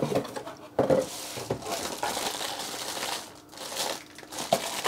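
Plastic shrink-wrap crinkling and cardboard packaging rustling as a wrapped plastic item is pulled from its box and handled, with a few sharp knocks about one and one-and-a-half seconds in.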